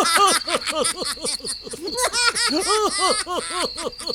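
Rapid, high-pitched giggling laughter: a quick run of short syllables, each rising and falling in pitch, with a couple of brief pauses.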